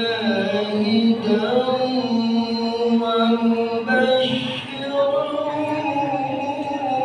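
A man chanting an Islamic devotional song (sholawat) into a microphone, holding long notes that bend slowly in pitch.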